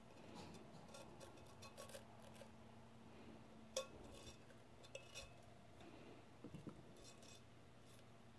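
Faint scraping and light ticks of an X-Acto craft knife trimming wet temporary-tattoo paper along a metal tumbler's rim, with one sharper click about four seconds in.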